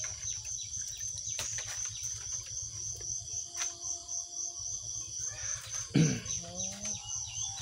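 High-pitched insect chirring, steady and finely pulsing, carries through. About six seconds in, a short loud call with falling pitch cuts across it, and a few faint clicks come and go.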